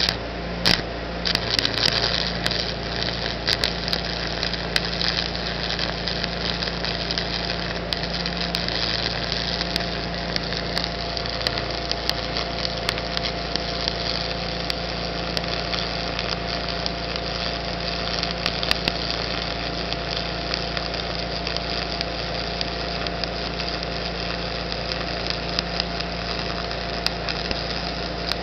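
Stick (shielded metal arc) welding with a 7018 electrode on DC: the arc crackles and sizzles steadily with frequent sharp pops. A steady machine hum runs underneath.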